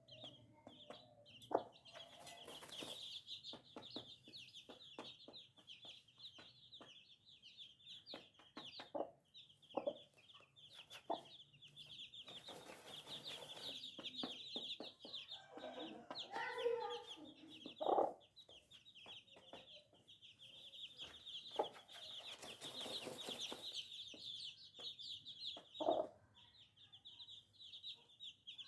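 A brood of baby chicks peeping continuously in a high-pitched chorus, with a hen's lower clucks standing out now and then, loudest about 18 and 26 seconds in.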